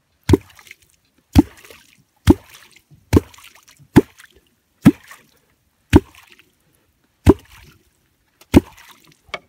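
Wooden catfish clonk struck into the water nine times, about once a second, each stroke a sharp knock followed by a short splash. Clonking is done to draw catfish up to the bait.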